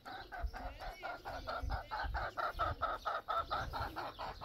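Chicken clucking: a fast, even run of short calls, about six a second.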